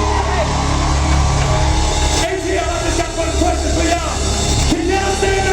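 Live R&B band music played through a concert PA, with a steady bass and drum groove under a sung lead vocal.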